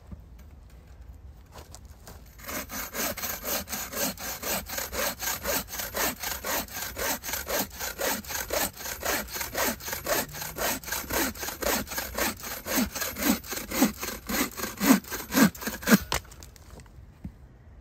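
Bow saw cutting through a split piece of wood in rapid, even back-and-forth strokes. The strokes start about two and a half seconds in, get louder over the last few, and stop about sixteen seconds in as the piece is cut through.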